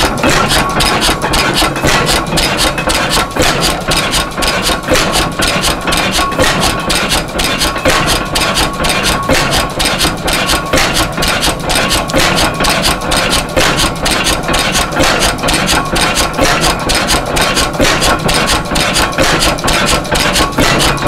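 Circa-1920 Spence-Smith-Kootz oil field pumping engine running steadily at about four beats a second. It is running well on spark plug, battery and coil ignition.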